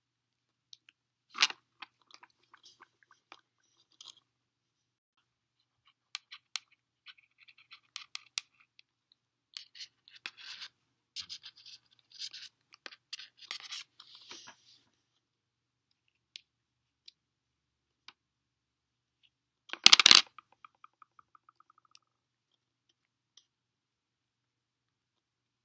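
Single-braided rope being worked by hand into a spliced eye: scattered rustling and scratching of the line's fibres as the strands are pulled through, busiest in the middle. About twenty seconds in comes one loud sharp knock, followed by a short run of quickening, fading ticks.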